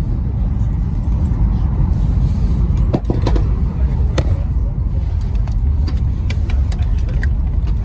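High-speed train running at about 275 km/h, a steady low rumble heard inside the passenger cabin. A few sharp clicks and knocks come about three and four seconds in.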